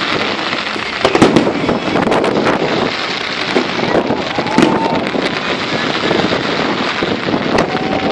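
Aerial fireworks going off in a dense, continuous run of bangs and crackling, with a few short faint tones in between.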